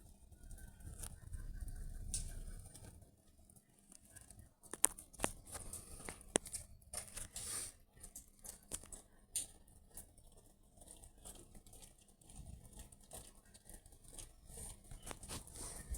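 Rain pattering in a thunderstorm: irregular drops and sharp clicks, thickest in the middle, over a low rumble in the first couple of seconds.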